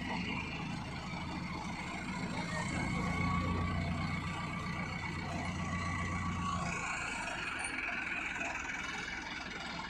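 KS Harvester 513 combine harvester's diesel engine running steadily while it tows another combine. Its low hum grows heavier about two seconds in and eases off again around seven seconds in.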